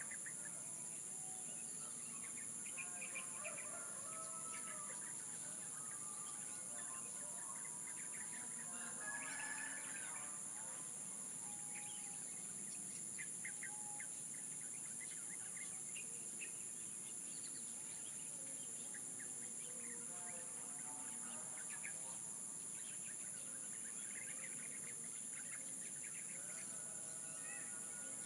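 Songbirds chirping and calling, with many short scattered notes, over a steady high-pitched insect drone.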